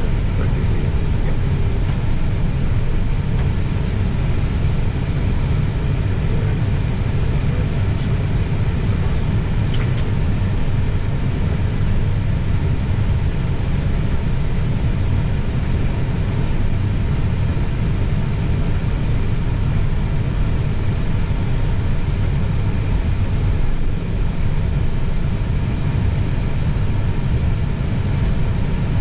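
Steady cockpit noise of an Airbus A320neo taxiing: a dense low rumble with faint steady whining tones above it, holding even throughout.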